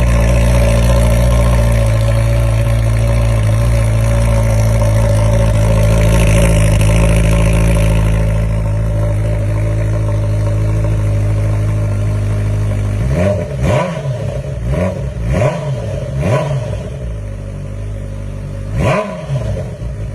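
Honda CBR1000RR sport bike's inline-four engine running steadily, then revved in a string of quick throttle blips, each rising and falling in pitch, with one more blip near the end.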